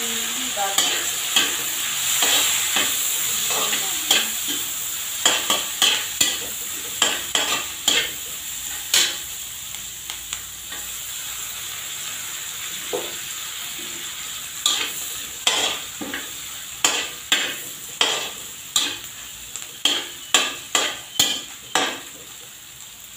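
Sliced onions and dried shrimp sizzling in hot oil in a steel wok, with a metal spatula scraping and clinking against the pan in quick runs as they are stir-fried. The sizzle dies down toward the end.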